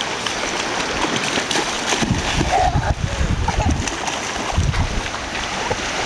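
Splashing in shallow seawater as a child runs and jumps through it, heaviest in the middle of the stretch, over a steady wash of surf.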